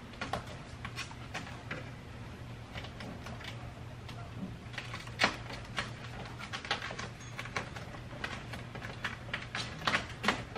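Irregular rustling, creaking and clicking from a lowered car headliner and a sheet of self-adhesive closed-cell foam insulation being pushed into place in the roof. There is a sharp click about five seconds in and a run of clicks near the end, over a steady low hum.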